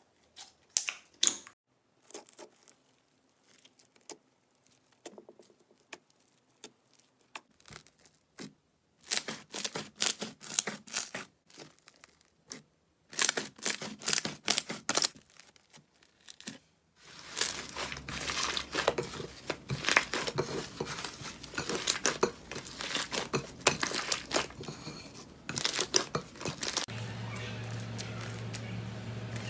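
Slime being pressed and worked, giving bursts of crinkly, crackling clicks. About halfway through the crackle becomes dense and continuous, with a low hum underneath.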